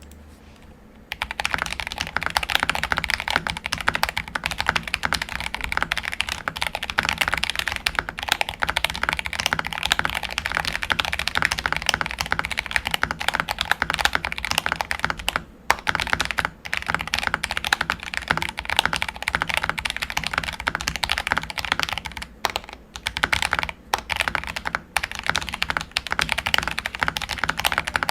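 Fast continuous typing on an MK870 mechanical keyboard with Akko Jelly Purple tactile switches and PBT keycaps, dampened inside with PE and EVA foam, a silicone dampener and polyfill. It starts about a second in, with a few brief pauses in the keystrokes later on.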